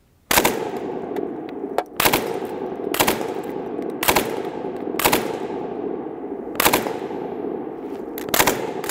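UK vz.59 belt-fed machine gun in 7.62x54mmR firing about seven very short bursts of a few shots each, roughly a second apart. A long echo rolls on between the bursts and fades after the last one.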